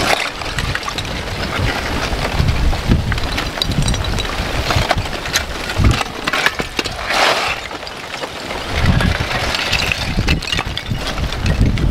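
Front of a blocky lava flow crackling and clinking as its cooled crust cracks and shifts. A louder rattling slide of breaking blocks comes about seven seconds in. Wind gusts buffet the microphone.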